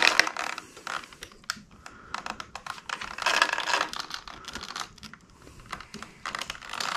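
Quick small plastic clicks and light crinkling as hands fit a small mask accessory onto a plastic action figure and handle a clear plastic accessory bag. The clicks come in clusters, around a second in and again from about three to four and a half seconds in.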